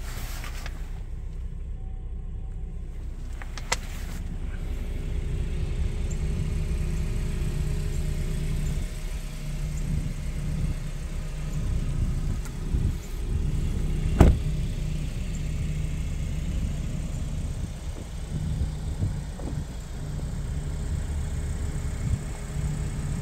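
Porsche Macan running: a steady low engine and road rumble that grows a little louder about five seconds in. A single sharp knock about fourteen seconds in is the loudest moment.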